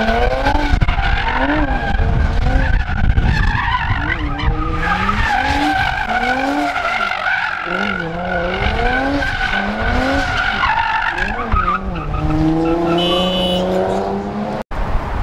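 Front-wheel-drive Toyota Camry doing donuts: its engine revs rise and fall over and over above a steady tire squeal. Near the end the revs hold high and climb slowly.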